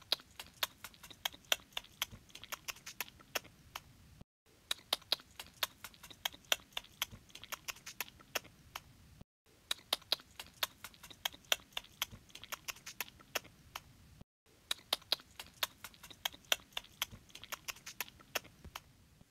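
Rabbit noises: rapid, irregular sharp clicks and ticks, a short stretch heard four times over with a brief silent break between each.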